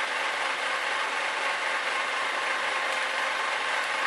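Scotty electric downrigger's motor and gear drive running steadily on full auto, winding braided Spectra line tightly onto its spool.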